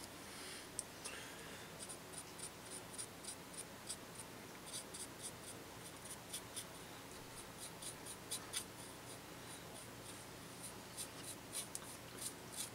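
Small paintbrush dry-brushing India ink stain onto a plastic model building's wall: a steady run of faint, short, scratchy strokes, two or three a second.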